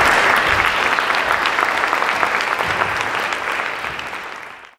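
Audience applauding, the clapping thinning out near the end and then cutting off abruptly.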